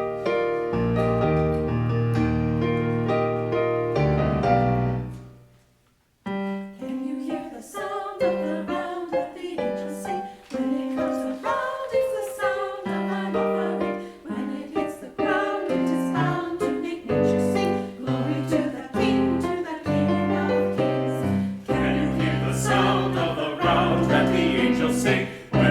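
Piano introduction to a choir anthem: held chords, a brief break about five seconds in, then a flowing line of struck notes that grows fuller near the end.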